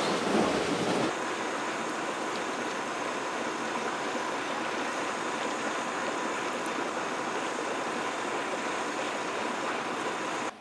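A steaming volcanic vent hisses and rushes for about the first second. Then comes the steady bubbling and gurgling of a grey volcanic hot-spring pool, with gas bubbles rising and breaking at its surface.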